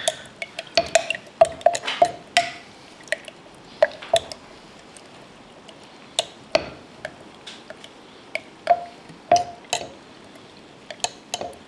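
A spoon stirring ayran with dried mint in a glass, clinking irregularly against the side with short ringing taps, along with faint liquid sounds.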